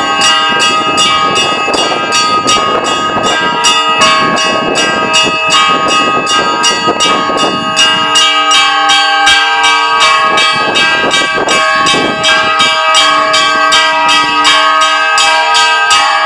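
Russian Orthodox church bells rung in a festive peal. Small bells are struck rapidly, about four times a second, over the long ringing tones of the larger bells.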